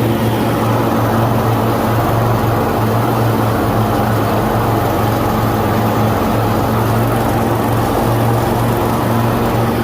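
Mower engine running steadily at constant speed while cutting grass.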